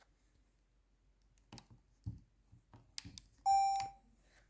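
A few faint clicks of the Sony Handycam DCR-HC21 camcorder being handled and switched on, then a single short electronic beep from the camcorder about three and a half seconds in, the sign that it is powering on.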